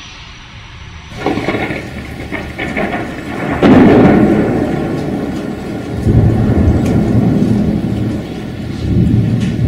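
Thunder rumbling over steady rain. It starts soft, builds after about a second, breaks into a loud, sudden rumble about a third of the way in that slowly rolls away, and swells again twice later on.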